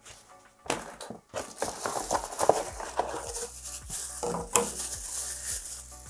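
Plastic wrapping crinkling and rustling as vacuum attachments are unpacked, with short clicks and knocks of plastic parts being handled.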